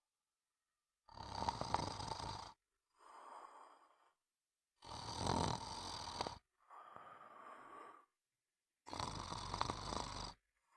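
Snoring in a steady rhythm. There are three loud snores about four seconds apart, each followed by a softer out-breath, with silent gaps between.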